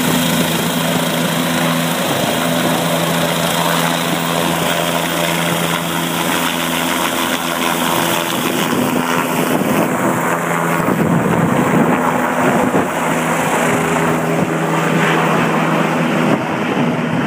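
Air-ambulance helicopter running: a loud, steady hum of rotor and engine over a wide rushing noise, the hiss thinning after about ten seconds.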